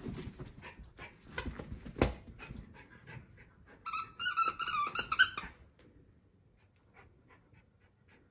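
Schipperke puppy scrambling on a fabric couch with thumps and rustling, then biting a plush squeaky toy: a rapid run of high squeaks lasting about a second and a half, the loudest sound. Faint panting follows.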